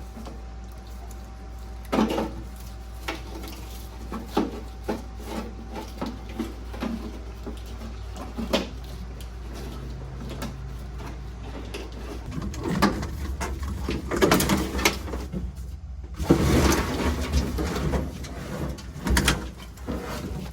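Old truck wiring being pulled and cut free: scattered knocks, clicks and rattles of wires and connectors, growing into a longer stretch of rustling and scraping in the second half, over a steady low hum.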